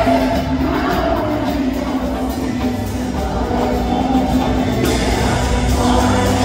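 Live concert music played loud through an arena PA, with sustained notes over a steady low beat and a singing voice.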